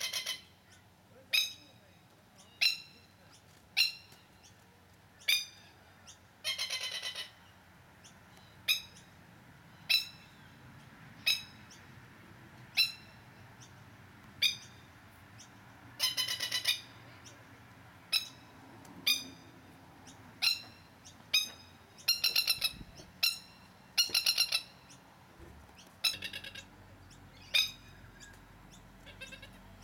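Masked lapwing calling in alarm while guarding its chick: a sharp, strident call repeated about once every second and a bit, broken four times by longer rattling runs of rapid calls.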